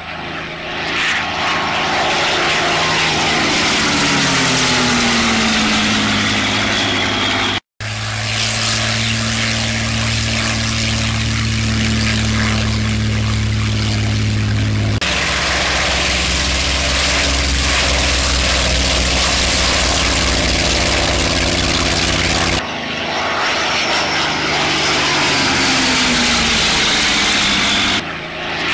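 Piston engines of WWII German fighters, a Focke-Wulf Fw 190 A-5 and a Messerschmitt Bf 109 E-3, in several shots. In two of them the engine note falls in pitch as a plane passes by. In the middle shots a steady engine note comes from the Bf 109 rolling for takeoff. The sound breaks off sharply at each cut.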